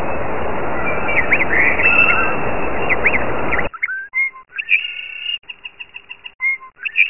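Bird chirps and whistles over a loud, steady hiss, which cuts off abruptly about three and a half seconds in. After that come short, clear whistle-like tones with gaps between them.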